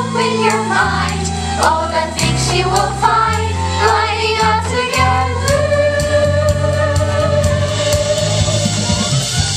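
A choir of voices singing a musical-theatre finale over band accompaniment with sustained bass notes, settling into one long held note about five seconds in.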